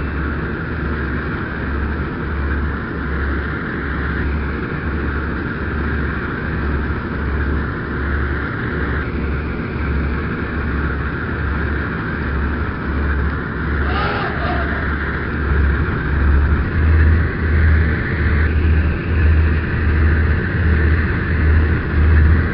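Battleship engine sound effect: a steady rumble under a slow, regular low thudding. From about two-thirds of the way in the thudding speeds up and grows louder, as if the engines are throttling up.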